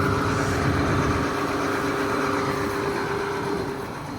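Combine harvester standing and running, a steady engine and machinery hum with a held tone; a hissing layer above it fades a little before the end.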